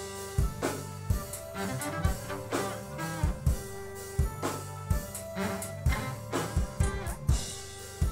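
Live band playing an instrumental passage: a drum kit keeps a steady beat over a bass guitar line, with some held higher notes above, and no vocals.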